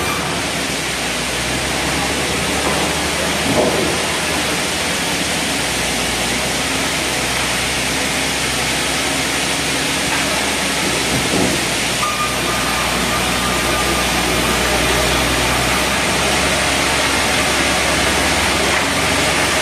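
Loud, steady running noise of sawmill machinery with a low hum underneath, and a couple of brief louder sounds about a fifth of the way in and just past the middle.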